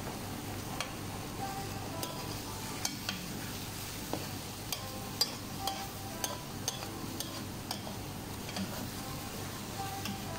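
Slotted metal spoon stirring and scraping an egg mixture in an aluminium frying pan, with irregular sharp clicks of metal on metal, while the eggs sizzle steadily in hot oil.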